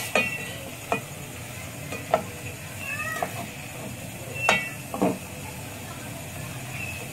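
A black slotted spatula scraping and knocking against a metal pot, stirring minced beef keema frying in oil over a steady sizzle, with several sharp scrapes. A short squeak rises and falls about three seconds in.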